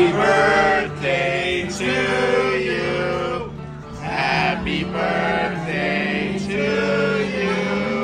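A song: a man singing slow, held notes over a steady instrumental accompaniment.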